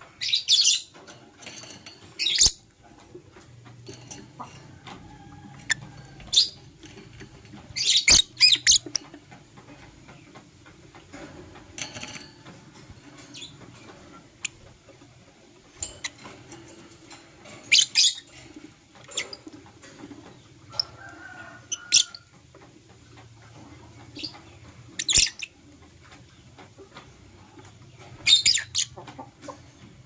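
Lovebird giving short, high-pitched chirping calls in scattered bursts of one to several quick notes every few seconds, with quiet gaps between them.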